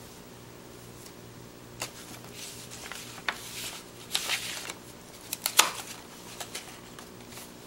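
Paper envelope rustling as a folded paper pop-up card is slid out of it, with several sharp paper snaps and clicks. The loudest snap, about five and a half seconds in, comes as the rubber-band-activated card springs open.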